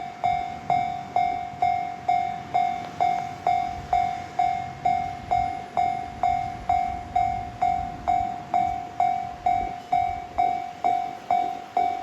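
Japanese railway level-crossing warning bell ringing a steady, even ding about twice a second. A low rumble runs underneath.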